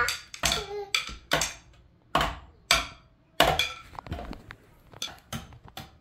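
Wooden drumsticks striking the pads of an Alesis electronic drum kit: irregular taps and whacks, with several hard hits in the first half and lighter, quicker taps later on.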